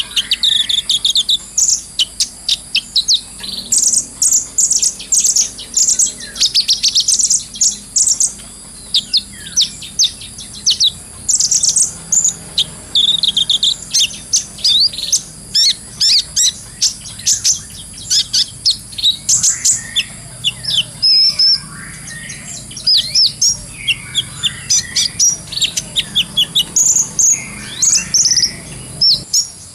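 Kolibri ninja sunbird singing a long, busy chattering song: quick runs of thin, high chirps and trills, one after another with only brief gaps.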